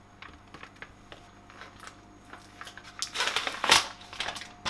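Thin plastic food packaging crinkling and crackling as sliced ham is taken out and handled. It starts as a scatter of small clicks and grows into a louder rustle about three seconds in.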